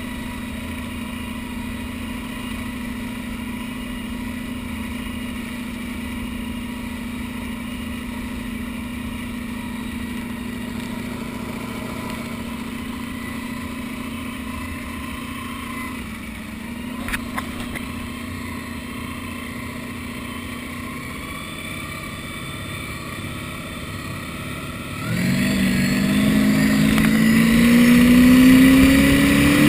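V-drive boat's inboard engine running steadily at low speed, then opened up near the end, its pitch rising as the boat accelerates.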